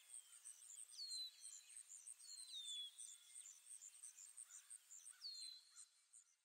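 Faint outdoor birdsong: a bird's short downward-slurred whistle, a few times, over a fast, high, even chirping, fading out near the end.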